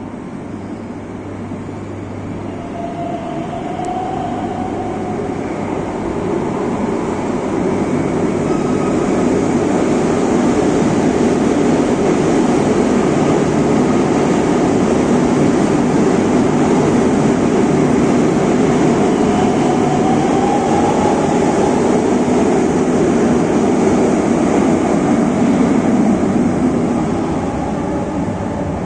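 Madrid Metro Serie 9000 electric train running into and along an underground station platform. The steady rumble of its wheels on the rails swells over the first ten seconds, holds loud, and eases off near the end, with a faint whine that rises in pitch twice.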